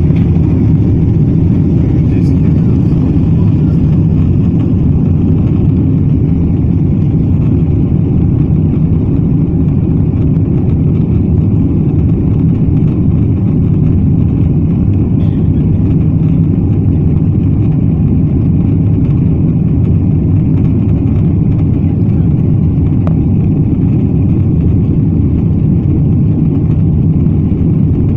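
Boeing 777's jet engines running at takeoff thrust, heard inside the cabin as a loud, steady, low-heavy roar through the takeoff run and climb-out.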